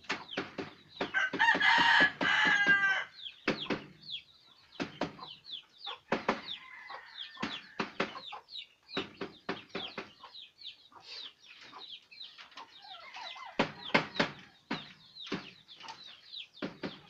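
A rooster crows once, about a second in, the loudest sound here, over a steady run of sharp hammer taps as staples are driven to fasten wire mesh onto a wooden cage frame.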